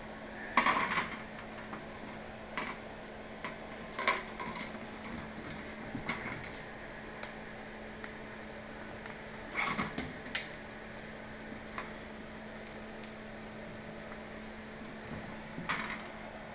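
Scattered light knocks and clicks of plastic parts and tools being handled, a few seconds apart, the loudest about half a second in and again near ten seconds, over a steady low hum.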